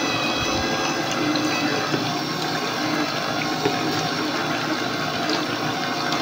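Electric vertical slow juicer running steadily, its motor giving a constant hum with several held tones, while a thin stream of carrot juice splashes into a plastic jug.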